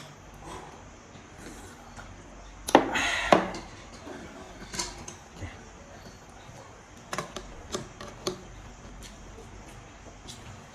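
Handling sounds while drinking at a table: a short loud rushing burst about three seconds in, then a few light clicks and knocks of a cup and tableware.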